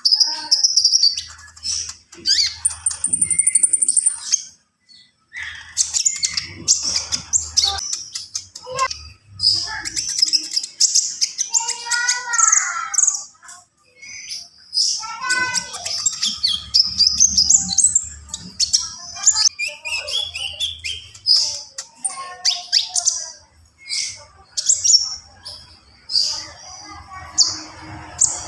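Kolibri ninja sunbird singing continuously in rapid, high chirping and twittering phrases, varied and packed with mimicked calls ('isian'), with short pauses between bursts.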